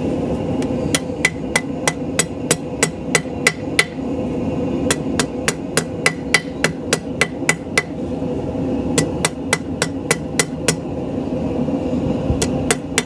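Hand hammer striking hot steel on an anvil in runs of quick blows, about three a second, with short pauses between runs, while a taper is drawn out to a square point. Each blow rings briefly over a steady hum.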